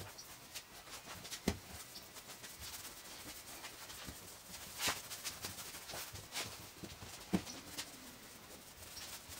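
Hands shaping spelt baguette dough on a floured wooden table: quiet rubbing and rolling with a few scattered soft taps and knocks.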